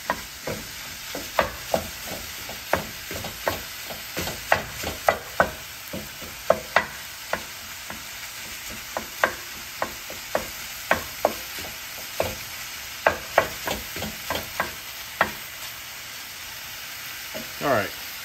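Wooden spatula chopping and scraping raw ground beef in a cast-iron skillet: sharp irregular knocks of the spatula on the pan bottom, about one or two a second, over a light steady sizzle of the meat frying. A short metallic ringing scrape comes near the end.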